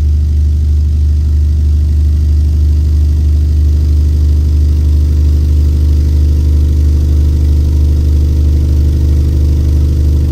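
Pioneer Premier 12-inch subwoofer in a ported box playing a 25 Hz test tone, driven by a 3000-watt amplifier: a loud, steady low drone with buzzy overtones.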